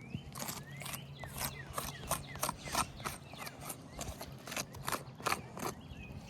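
Repeated short scrapes and clicks of a tool working against asphalt roof shingles, a few with small squeaks, coming irregularly about three times a second.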